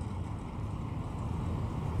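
1974 Plymouth Barracuda's 440 V8 rumbling at low speed through its side pipes as the car turns, growing slowly louder as it comes back toward the listener.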